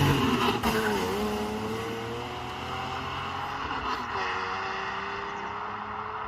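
BMW E32 7 Series petrol engine pulling under acceleration. Its pitch drops and climbs again about a second in and again about four seconds in, as the gearbox shifts up, and the sound slowly gets quieter.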